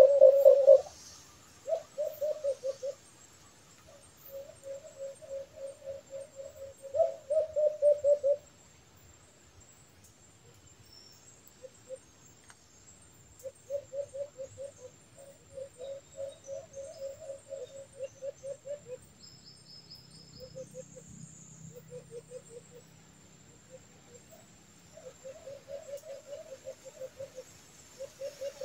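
White-eared brown doves (alimokon) cooing: bouts of rapid, low, pulsed notes lasting a second to several seconds, with pauses between. The bouts at the very start and about seven seconds in are the loudest.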